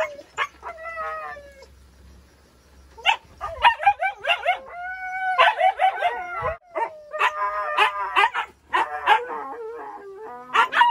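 Siberian husky howling and yipping in a string of wavering, rising and falling calls, with a short lull about two seconds in and one longer held howl around the middle.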